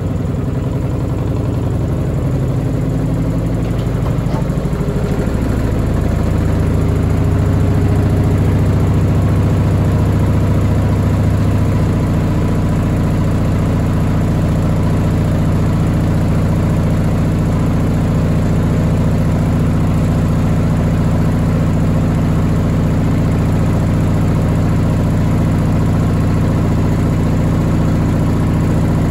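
Washing machine on a high-speed spin: the drum and motor climb in pitch and level over the first several seconds, then hold a loud, steady hum.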